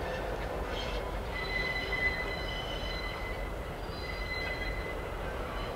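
Steel wheels of a train moved by an EMD SW8 switcher squealing against the rails over the low rumble of the rolling train. The high squeal comes in about a second and a half in and fades in and out.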